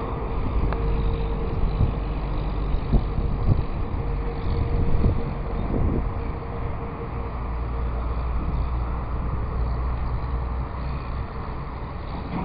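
Storm wind buffeting the microphone: a steady low rumble with irregular gusts and thumps, strongest in the first half.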